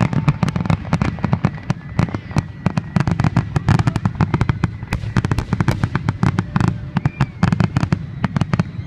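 Fireworks finale: a dense, rapid barrage of bangs and crackling that stops at the very end.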